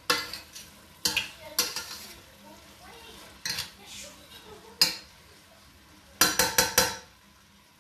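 A metal spoon stirring food in a stainless steel pot, scraping and clinking against the pot's sides, over a faint sizzle of shrimp, fish and bell peppers frying in butter. Near the end comes a quick run of about five clinks.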